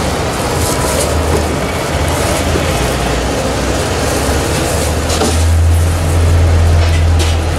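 Low engine rumble of passing road traffic, growing louder about five seconds in and easing off near the end.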